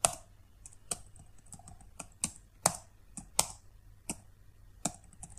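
Single keys pressed on a computer keyboard, about ten separate keystrokes at uneven intervals, stepping through software menus.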